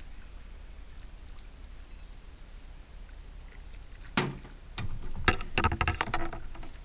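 Golden dorado being landed at the side of an aluminium boat: one sharp knock about four seconds in, then a quick run of knocks and splashing lasting about a second and a half.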